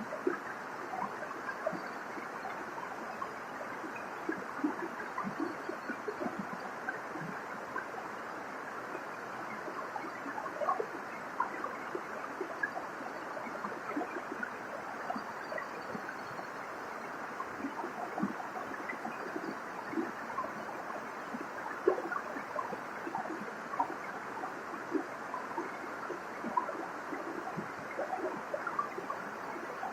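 Waterfall splashing steadily: a constant rush of falling water with many quick splashes and gurgles scattered through it.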